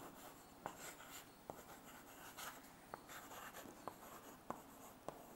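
Chalk writing on a blackboard: faint scratching, with a handful of sharp little taps where the chalk strikes the board.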